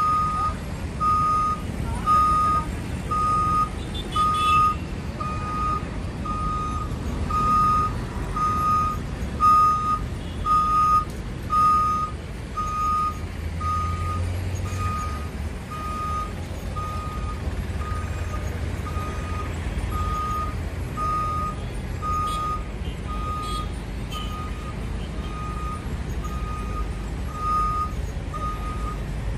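Warning beeper of a Zagro E-Maxi road-rail shunter sounding a steady single-tone beep about one and a half times a second as it moves a metro train along the track, over a low rumble.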